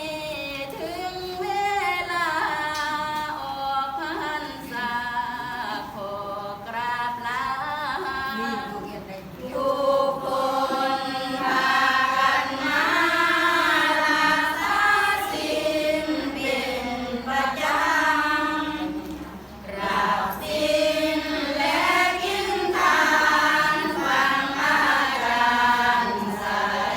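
A group of voices singing a slow melodic line together, with held, wavering notes and short pauses between phrases.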